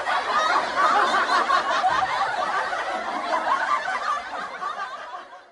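Laughter sound effect: several voices snickering and chuckling together, fading out near the end.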